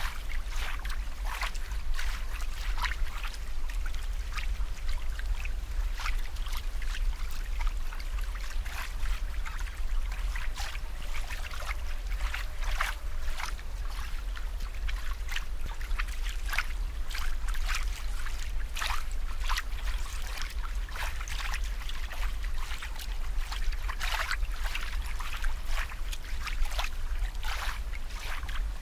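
Water trickling and splashing, with many small irregular drips and splashes, over a steady low hum.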